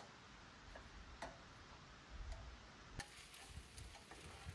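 Near silence with faint, scattered light clicks and taps at irregular intervals, typical of kitchen gear being handled on a camp table.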